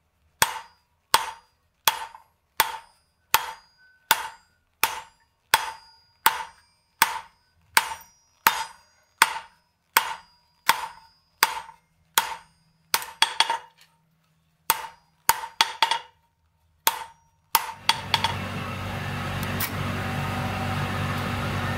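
Hand hammer striking red-hot steel on an anvil at a steady pace, about three blows every two seconds, each with a short metallic ring; a few quicker double blows come near the end. About eighteen seconds in the hammering stops and a steady rushing noise with a low hum follows, the coal forge fire under its air blast.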